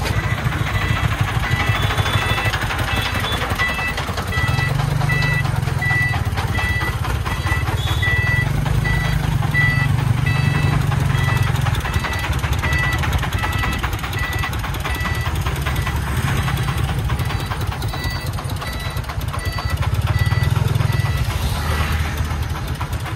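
Công nông three-wheeled truck's 40-horsepower diesel engine chugging under load, revving up in several surges as the sand-laden truck manoeuvres. A reversing beeper sounds short, evenly spaced high beeps through most of it, with a break a little past the middle.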